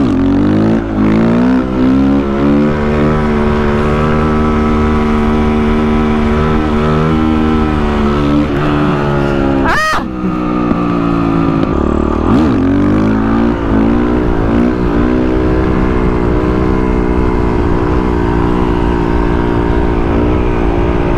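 Motorcycle engine running at a steady pitch while riding, with a low rumble of wind underneath. About halfway through a brief rising-and-falling engine note sweeps across, and a smaller glide follows a couple of seconds later.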